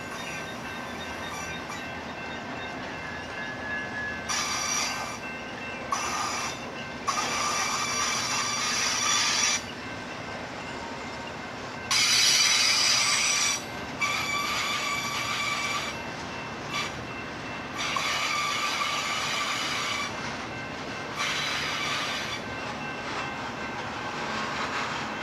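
Union Pacific freight train's cars rolling past with a steady rumble, broken about seven times by high-pitched steel wheel squeal lasting a second or two each, loudest about halfway through.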